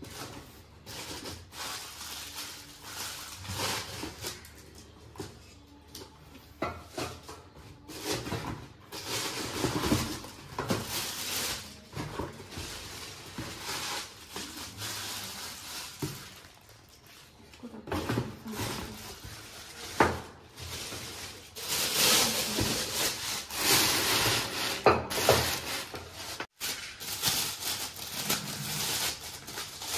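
Cardboard box and packaging rubbing and rustling as a new pressure cooker is handled and lifted out, with occasional knocks and the crinkle of the plastic wrapping around its lid. The handling gets louder in the last third.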